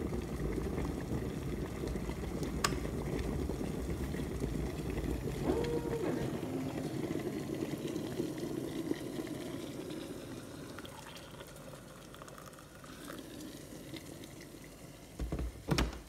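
Water heating in a Robusta Breakfull glass electric kettle after its repair: a steady hiss with bubbling that fades through the second half. A sharp click comes early, and two loud knocks come near the end.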